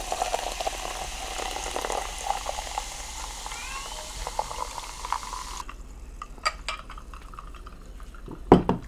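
Sparkling water poured from a can into a ceramic mug, fizzing and splashing, with a faint rising tone partway through. The pour stops abruptly a little past halfway, followed by a few light clicks and a louder knock near the end.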